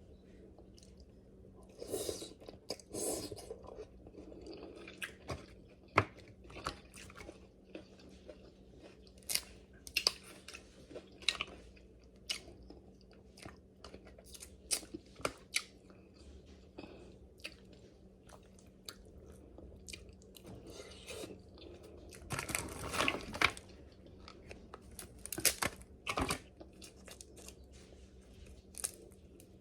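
Close-miked eating of king crab: chewing with many sharp clicks and crunches, with two louder crackly spells, one about two seconds in and one near the end.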